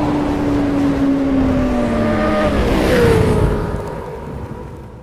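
Motorcycle engine sound effect: a high-revving engine note that slowly sinks in pitch, a louder whoosh about three seconds in, then a fade-out.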